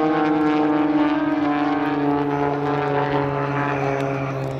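Piston engines of two aerobatic propeller planes flying past in formation, a steady drone whose pitch slowly falls as they pull away.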